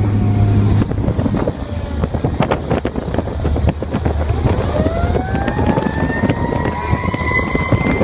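Fire engine running under way with heavy road and wind noise. About halfway through, its siren rises in pitch and then holds a steady high wail.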